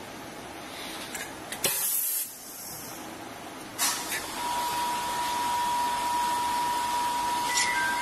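Pneumatic pulse hot-press bonding machine for phone-screen flex cables cycling. Compressed air hisses briefly about two seconds in and again about four seconds in as the air-driven press head moves. A steady tone then sets in and holds.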